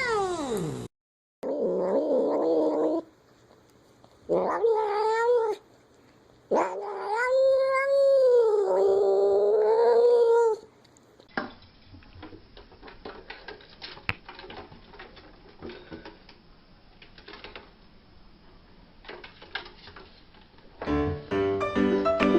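Domestic cats meowing and yowling in a few separate calls, the longest a drawn-out yowl of about four seconds that rises and falls in pitch. A long quieter stretch of faint clicks follows, and music starts near the end.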